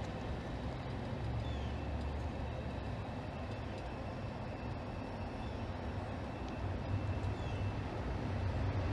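Low, steady rumble of distant engines, growing a little louder near the end.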